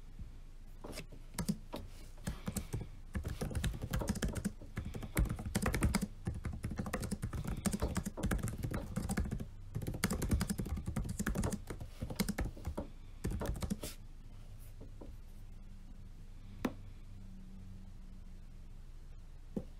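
Typing on a laptop-style keyboard: a dense, fast run of key clicks that stops about two-thirds of the way through, followed by just a couple of single key taps.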